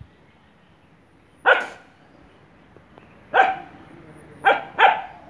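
A dog barking four times: two single barks a couple of seconds apart, then two in quick succession near the end.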